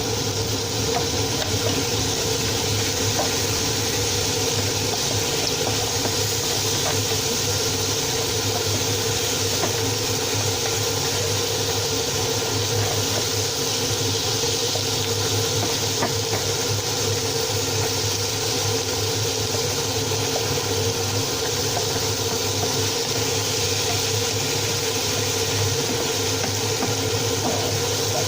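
Steady hum with a hiss over it and faint scattered pops, from a pot of oxtail cooking on the stove with a kitchen appliance humming.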